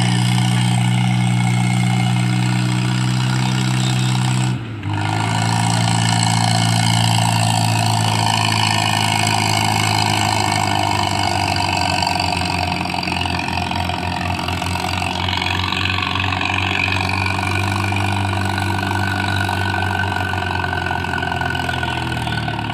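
Antique tractor engine running steadily. It drops out briefly about four and a half seconds in and comes back slightly higher in pitch.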